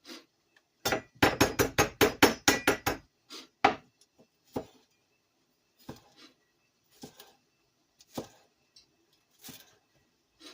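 Kitchen knife chopping scallions on a cutting board: a fast run of about a dozen strokes about a second in, then single cuts roughly once a second.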